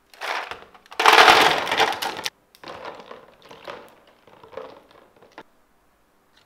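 Ice cubes tipped into an empty plastic storage box, clattering and cracking loudest for about a second, then smaller rattles as a hand shifts the cubes around.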